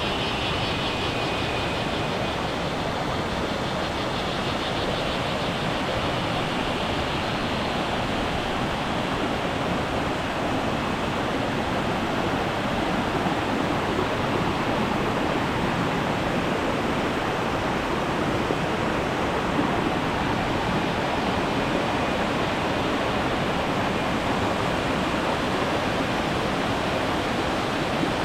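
Waterfall's water rushing in a steady, loud, unbroken roar of noise, with a faint high pulsing chirp near the start.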